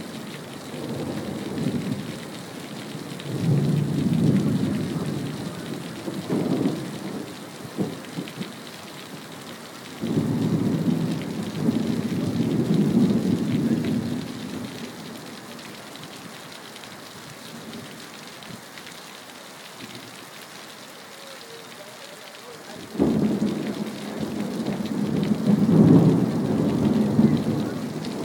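Thunder rolling over steady rain. There are three deep, drawn-out rumbles: one swells over the first several seconds, another starts suddenly about ten seconds in and dies away after a few seconds, and a third starts suddenly late on and grows toward the end.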